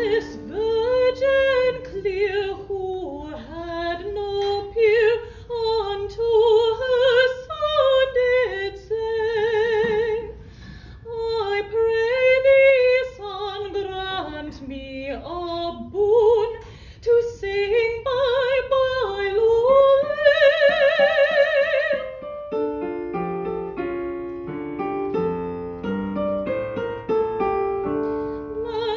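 Operatic soprano singing a liturgical piece with vibrato, accompanied by a Yamaha electronic keyboard playing piano sound. She holds a long high note with wide vibrato about two-thirds of the way through, then the keyboard plays on alone for the last several seconds.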